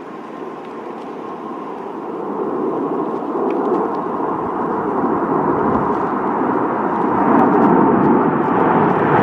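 Boeing 787 jet engines climbing out just after takeoff and passing overhead: steady jet noise with a faint high whine, growing steadily louder.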